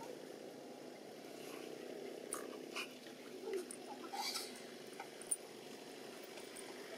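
Long-tailed macaque biting and chewing a mango: a few short wet clicks and smacks scattered through the middle of the clip, the sharpest a little after five seconds, over a steady low background murmur.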